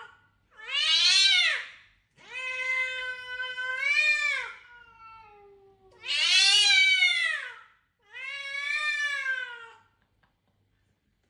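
A cat meowing four times in long, drawn-out calls of one to two seconds each. The second call is the longest and trails off in a falling tail.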